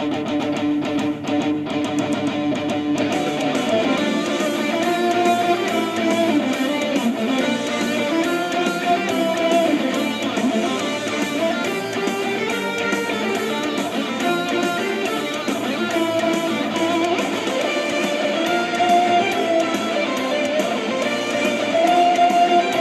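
Background music led by strummed guitar, at a steady level.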